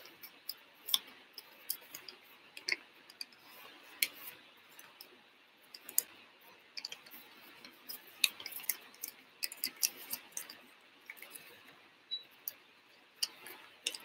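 Sheet of paper crinkling in the hands as an origami model is folded and creased: faint, irregular crackles and clicks.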